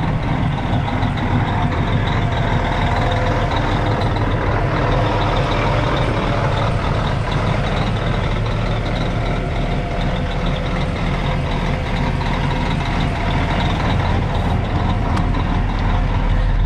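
Peterbilt semi truck's diesel engine idling steadily, heard close up.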